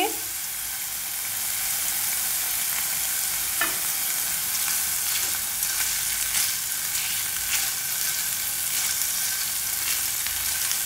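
Paneer cubes shallow-frying in a little oil in a nonstick frying pan: a steady sizzle, with a few light taps and scrapes of a silicone spatula as the cubes are stirred.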